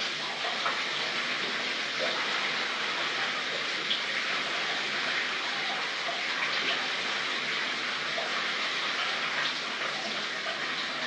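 Shower water running, a steady even spray with no break.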